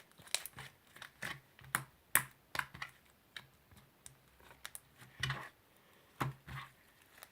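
Sticky butter slime being kneaded and squished by hand with soft clay worked in: irregular sharp clicks and pops, a few a second.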